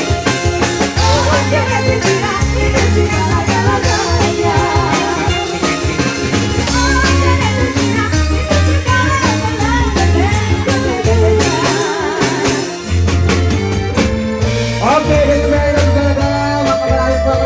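Live dangdut band music played loud through a PA: a singer's wavering, ornamented melody over a steady, heavy bass beat and drums.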